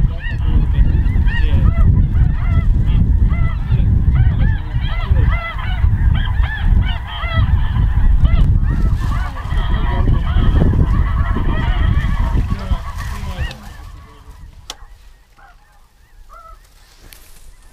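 A large flock of snow geese calling together, a dense chorus of overlapping high yelping honks over a loud low rumble. About 13 seconds in the chorus and rumble drop away abruptly, leaving only a few faint goose calls.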